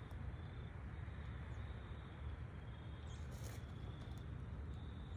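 Outdoor background: a steady low rumble of wind on the microphone, with faint high chirping coming and going. No gunshot.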